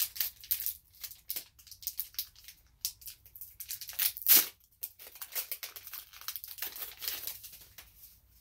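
Foil wrapper of a Pokémon trading-card booster pack being torn open and crinkled by hand: a run of quick tearing and crinkling rustles, loudest about four seconds in.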